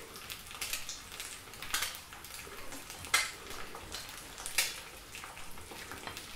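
Small pheasant eggs frying in fat in little blini pans: a steady sizzle with quick crackles. Over it, a few sharper clicks and scrapes of a spatula working chopped duck livers out of a stainless steel bowl, the loudest about three seconds in.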